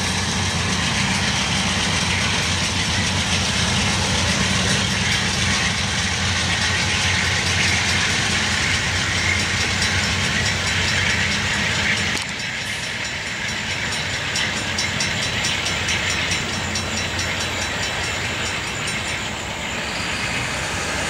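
Diesel locomotives at the rear of a coal unit train running past and moving away, with wheels clacking over the rail joints. The sound drops a little about twelve seconds in as the train draws off.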